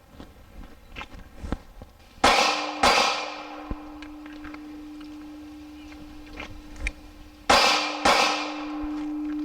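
Two pistol double taps, each pair of shots about half a second apart, with a few seconds between the pairs. A steady metallic ringing from the struck steel target follows the hits and grows louder after the second pair.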